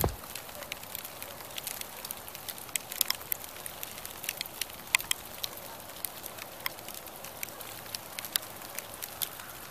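Faint steady hiss with scattered sharp ticks and crackles, several a second and irregular: falling snow landing on the phone and clothing, with no footsteps.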